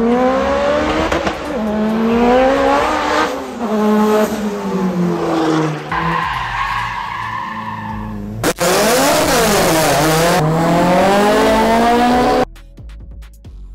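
Cars driven hard on a track, engines revving up and falling away with tyres squealing and skidding. The sound cuts abruptly between clips about eight and a half seconds in, and again near the end, where it drops much quieter.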